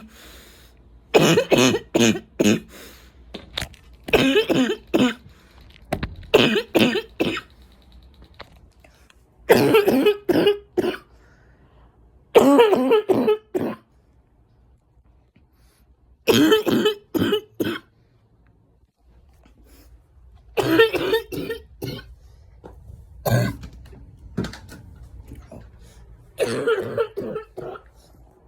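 A woman's deep, barking coughs, coming in repeated fits of several hacks each with short pauses between them. It is a smoker's cough made worse by allergies, rattling through the chest.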